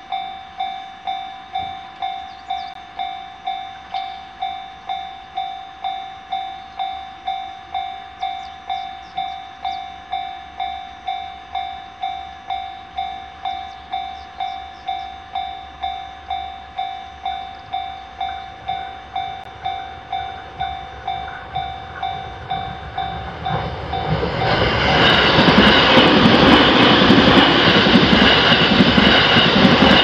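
Japanese level-crossing warning bell ringing steadily, an electronic ding about one and a half times a second. About 24 seconds in, an electric commuter train arrives and the rushing noise of its wheels on the rails quickly grows loud and drowns the bell out.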